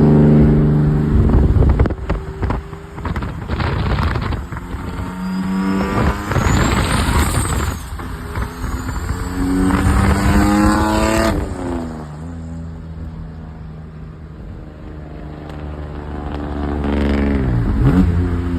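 Turbocharged 3.5 L VQ35DE V6 of a single-turbo G35 pulling hard in several bursts, with a high turbo whistle rising as it spools. A rapid fluttering chatter comes as the throttle shuts, which is compressor surge from the big turbo. It drops to a lower, quieter run about two-thirds of the way in, then gives one more short rev near the end.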